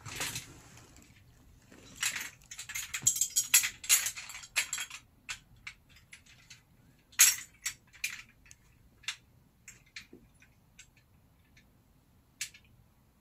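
Aluminium curtain track and plastic-and-metal mounting bracket being handled and fitted together: a stretch of scraping and rattling as the bracket slides along the rail, then scattered sharp clicks and clinks.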